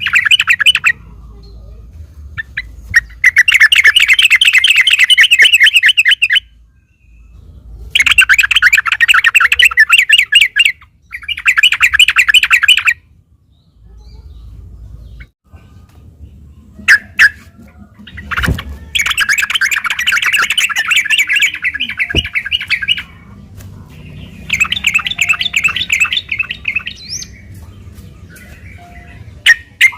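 Yellow-vented bulbul (trucukan) singing loudly in fast, rolling chattering phrases of two to three seconds each, with short pauses between them; about six phrases in all.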